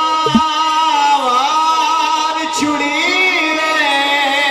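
Male voices singing a naat through a microphone and sound system, in long held notes that bend slowly in pitch, with more than one voice sounding at once.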